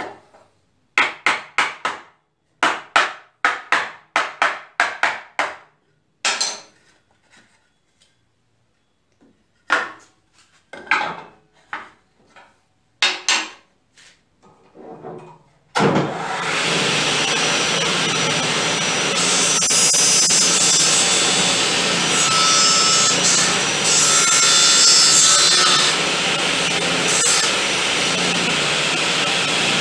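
A run of sharp wooden knocks as the joint pieces are handled and knocked apart. About 16 seconds in, a circular saw mounted under a saw table starts suddenly and runs steadily. From about 19 to 26 seconds a brighter, harsher cutting sound joins it as the blade takes a pass through the wood to sink a tenon that stood proud.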